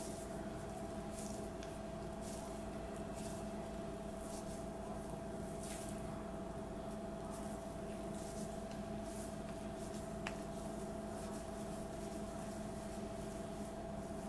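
Faint, soft squishing of hands pressing mashed potato around boiled eggs to shape egg potato chops, over a steady background hum, with one small tick about ten seconds in.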